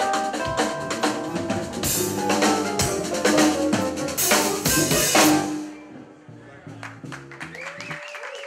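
Live jazz trio of piano, upright bass and drum kit playing, with drum hits and loud cymbal crashes. About five and a half seconds in the music drops away to a quieter stretch of held notes.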